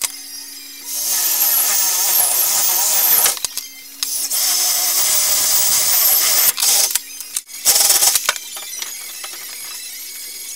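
Power tool running in three bursts, two long ones and a short one near the end, as monkey bars are put together.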